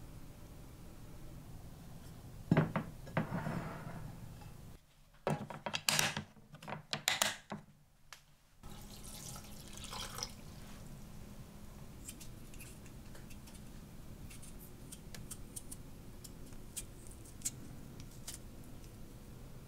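Hand food-prep sounds: a sharp plastic click as the mandoline slicer is set, then a quick run of cutting strokes on the slicer. Water then pours into a glass food-storage container of shredded vegetables, followed by faint scraping ticks of a vegetable peeler on a potato.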